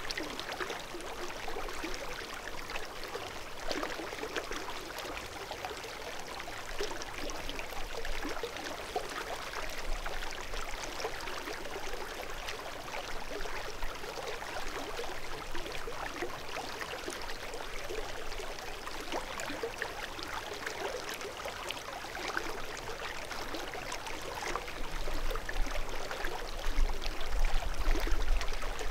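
Small meadow creek trickling and gurgling steadily. A low rumble joins in near the end.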